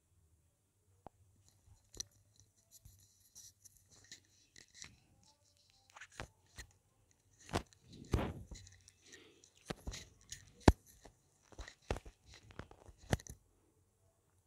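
Irregular soft clicks and rustling, with a louder crackling rustle about eight seconds in and a sharp click shortly after.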